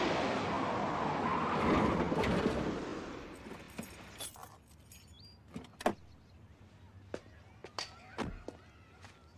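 A Chevrolet Suburban pulls up and its running noise fades away over the first three seconds. A series of sharp clicks and knocks follows as the driver's door is opened and he climbs out, ending in a deeper door thud about eight seconds in.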